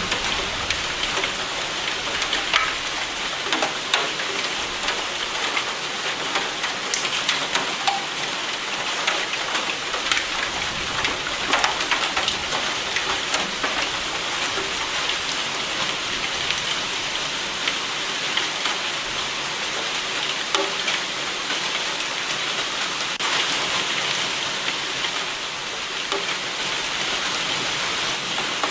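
Steady rain falling, a constant hiss with many distinct single drop hits on a surface.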